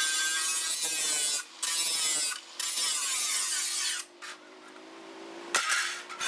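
Electric angle grinder grinding the edge of a flat steel hoe blade, a harsh hiss over a steady motor whine, broken briefly twice as the disc leaves the steel. About four seconds in the grinding stops and the motor runs down more quietly. Near the end there is a sharp knock.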